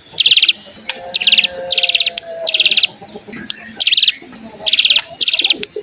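Ciblek gunung (cigun) giving its fast, buzzy 'bren' trill: short high-pitched rattling bursts about a third of a second long, repeated around eight times, over a steady thin high tone.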